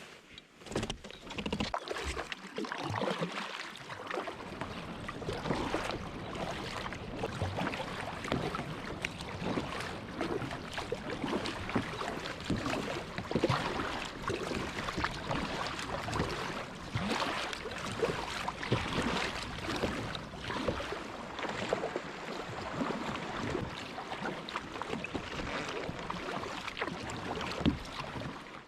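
Water splashing and sloshing around a kayak on the sea as it is paddled, with irregular splashes throughout. There are low buffets of wind on the microphone in the first few seconds.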